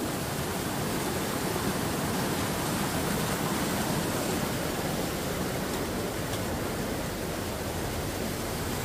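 Water of a small rocky waterfall rushing and splashing down over boulders, a steady even rush of white water.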